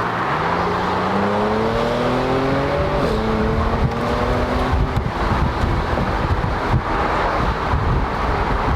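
2012 Audi S5 Cabriolet's engine accelerating hard, its pitch climbing, with a gear change about three seconds in after which it climbs again. From about five seconds on, steady wind and road noise take over.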